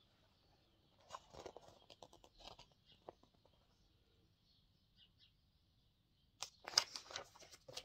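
Faint rustles and clicks of a picture book being held up and handled, with a louder cluster of rustling near the end.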